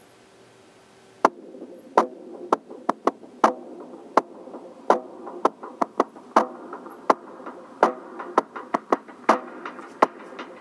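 Music with sharp, drum-machine-like percussive hits starts about a second in and keeps going.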